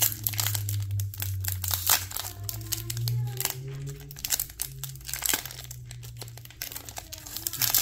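Foil wrapper of a Pokémon trading card booster pack crinkling and tearing as it is pulled open by hand, in a run of quick crackles.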